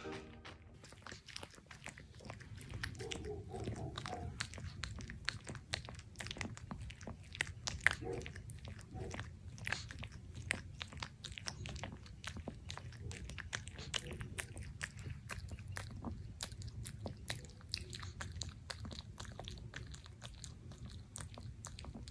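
Pomeranian dog licking peanut butter off a plastic bag: many quick wet licking and smacking clicks.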